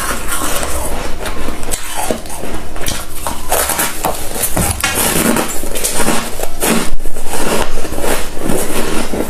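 Freezer frost crunching as it is bitten and chewed, a dense, irregular run of crisp crunches without pause.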